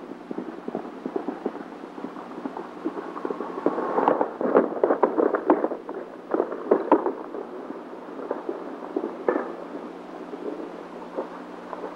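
Irregular crackling and snapping, densest about four to seven seconds in, over a steady low hum.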